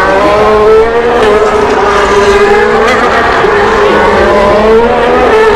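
Formula 1 car's 1.6-litre turbocharged V6 hybrid engine at high revs, its pitch rising and falling as it passes.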